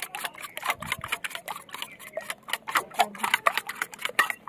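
Spoon beating an egg-white and cornflour batter in a stainless steel bowl, clicking rapidly against the metal at several strokes a second.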